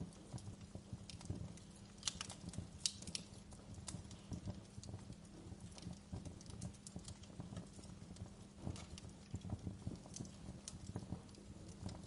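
Fireplace crackling: a dense, irregular run of small pops and clicks, with a few sharper pops about two to three seconds in.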